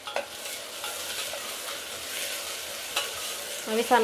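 Onions and whole spices frying in hot oil in a pan, a steady sizzle as they are stirred, with two sharp clicks, one near the start and one about three seconds in.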